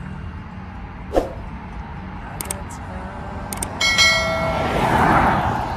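Subscribe-button animation sound effect: a few mouse clicks, then a bright bell chime with several ringing tones just before four seconds in. A rush of noise swells and fades after it, over a steady background rumble.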